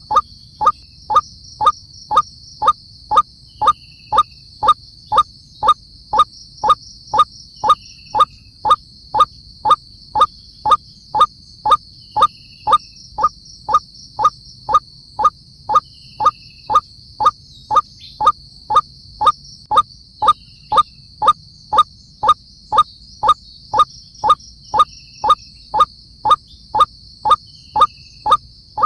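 White-breasted waterhen calling: a monotonous run of short, sharp croaking notes repeated evenly, about two a second, over a steady high drone in the background.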